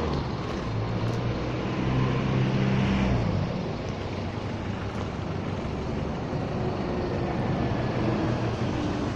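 Street traffic: a motor vehicle's engine hums close by, loudest about two to three seconds in and fading out by about four seconds, over steady road noise.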